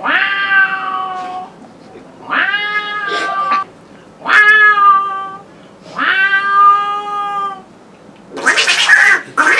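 A man imitating a cat's caterwaul with his voice: four long, drawn-out yowls, like a cat wailing like a crying person. A short, harsh, noisy burst follows near the end.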